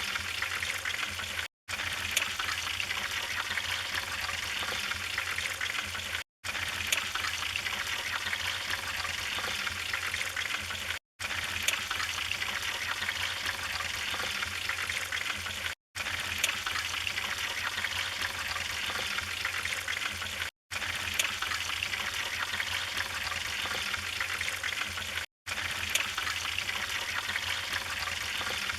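Wood fire in a fireplace burning with a steady hiss and scattered sharp crackles. The sound drops out for an instant about every five seconds.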